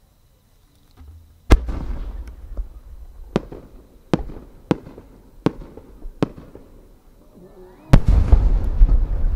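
Ikebun's 10-inch shakudama firework shell, a rising-tail four-pistil changing chrysanthemum. A loud launch thump comes about one and a half seconds in, then several sharp cracks while it climbs. Near the end the shell bursts with a heavy boom and a long low rolling rumble.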